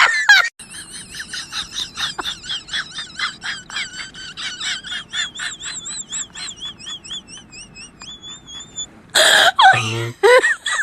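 High-pitched rapid giggling laugh, about five quick pulses a second with a wavering pitch, tapering off. About nine seconds in, a loud, shrill laugh breaks in.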